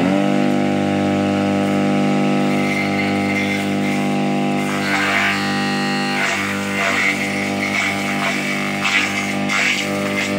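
Homemade grass chopper driven by a salvaged water-pump electric motor, humming steadily at full speed. From about five seconds in, irregular crackling comes in as green grass stalks pushed into the chute are cut by the spinning blades.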